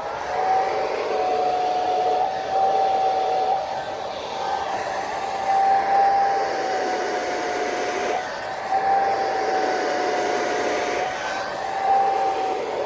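Handheld hair dryer running steadily, a constant whine over the rush of air, blow-drying the hair of a wig.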